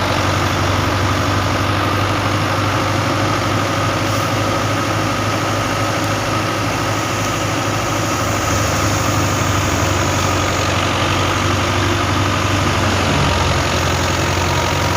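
Engine of a farm machine running steadily at the wheat harvest, a loud continuous drone with a steady low hum.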